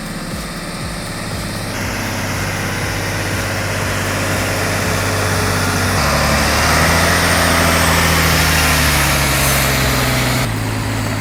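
A heavy vehicle's engine runs under load, getting gradually louder. About six seconds in the engine note deepens and grows stronger, and it drops back near the end.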